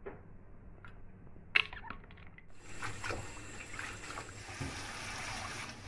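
A sharp clink about one and a half seconds in. Then, from about halfway, steady water splashing and running as hands wash fresh herbs in a metal bowl in a sink.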